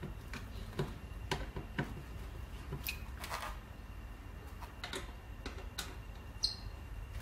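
Scattered light clicks and knocks, a few a second, from the metal and plastic parts of a hand-pushed rotary seed planter being handled and fitted during assembly, with a brief high squeak near the end.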